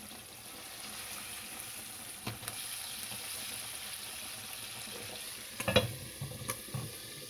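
Chicken pieces deep-frying in hot oil in a pot, a steady sizzle. A few sharp clicks and knocks come over it, a loud cluster of them about two-thirds of the way through and a couple more near the end.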